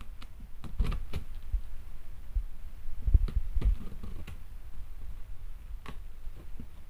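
Cardboard box being cut open and its flaps pulled up: scattered scrapes, clicks and knocks of a blade on packing tape and cardboard, with a few low thumps about three seconds in.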